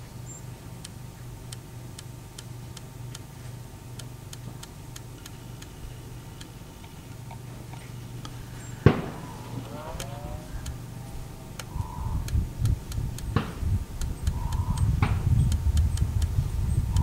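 Riflescope elevation turret being turned by hand, giving a string of small, sharp clicks at uneven spacing as the scope is dialed up for a 336-yard target. About halfway through there is one much louder sharp crack, and a low rumble builds toward the end.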